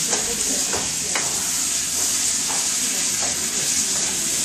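Garlic and fresh tomatoes sizzling steadily in hot olive oil in a frying pan. A spatula scrapes and stirs the pan, giving a few irregular clicks.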